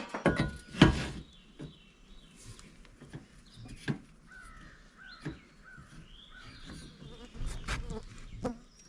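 Scattered knocks and clanks of metal parts and tools being handled, the loudest about a second in, with animal calls in the background, crow-like caws among them.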